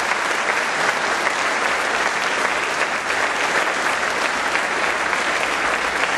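Large congregation applauding steadily, a sustained round of applause.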